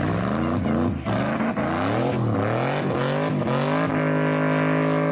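Hellcat 6.2-litre Hemi V8 swapped into a Mazda MX-5 Miata revving hard. The engine note climbs and drops back about four times, then holds at steady high revs near the end.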